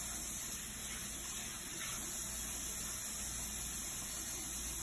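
A bathroom sink tap running, a steady even rush of water.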